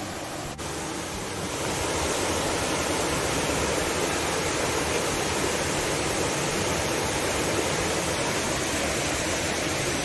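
Waterfall running: a steady, even rush of falling water that grows louder about two seconds in and then holds.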